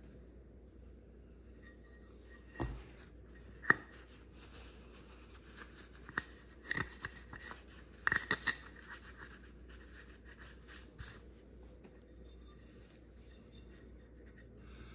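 Scattered clicks, knocks and clinks of small hard objects being handled and set down on a stone countertop. The sharpest comes near four seconds in and a quick cluster of clinks follows around the middle, then only faint rustling.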